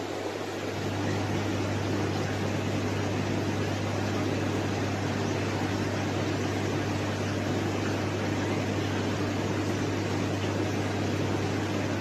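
Steady mechanical hum with a constant hiss, getting louder about a second in and then holding even.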